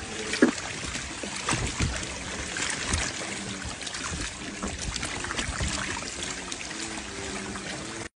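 Bubbling and trickling water, thick with small crackles and pops, with a sharper pop about half a second in: air bubbles from a scuba diver rising through an aquarium tank. The sound cuts off suddenly near the end.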